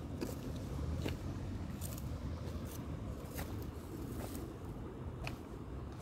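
Footsteps while walking: irregular light steps and scuffs, about one every half second to a second, over a steady low rumble of the hand-held phone's microphone being carried.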